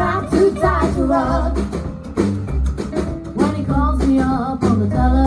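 Rockabilly band music with singing, guitar and drums, over a regular low bass pulse.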